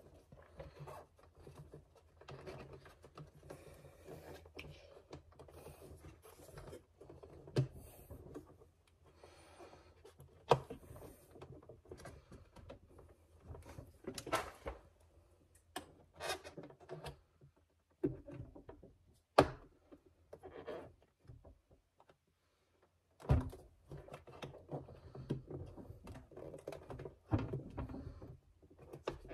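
Scattered light clicks, knocks and rubbing of plastic and rubber parts being handled, as a cover is fitted back onto a car headlight housing.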